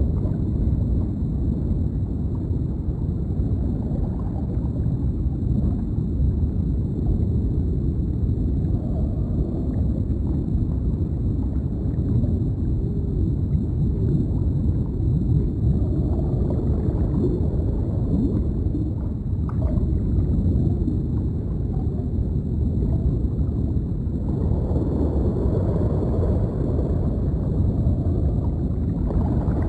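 Deep underwater ambience: a steady low rumble with bubbling and gurgling over it, and a faint high steady whine.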